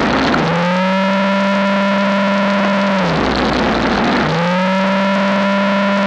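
Electric snowblower running: a steady, high motor whine that climbs back in about half a second in, sags in pitch and gives way to a rougher churning noise about three seconds in, then climbs back a second later.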